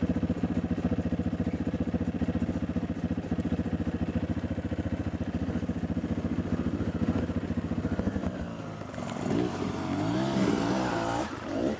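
Honda CRF230F dirt bike's single-cylinder four-stroke engine idling with a steady, even beat. From about nine seconds in it is throttled up and down, its pitch rising and falling, as the bike is worked over rocks.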